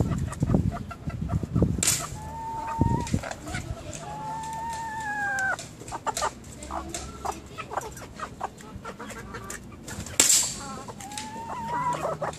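Two sharp cracks, about two seconds in and again near the end, of a BB gun being fired. Between them come several drawn-out bird calls, one falling in pitch as it ends.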